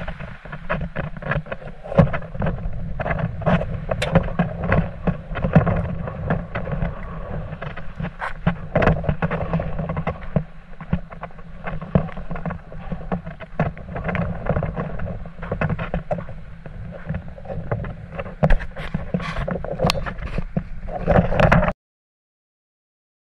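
Wind buffeting a handheld camera's microphone in gusts, a rough rumbling noise with irregular knocks and handling bumps. It cuts off abruptly near the end.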